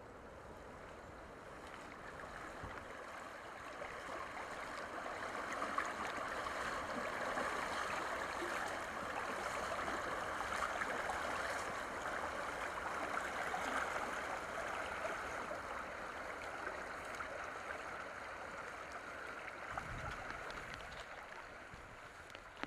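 Rustling and swishing of legs and clothing pushing through tall grass while walking, growing louder over the first few seconds and fading near the end.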